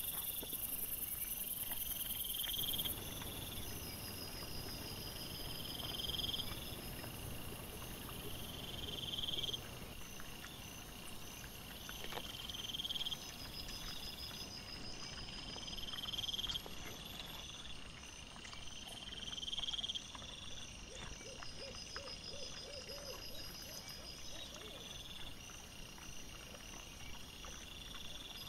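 Night insects chirping, a high call swelling for about a second and stopping, repeated every few seconds, with fainter pulsed trills above it.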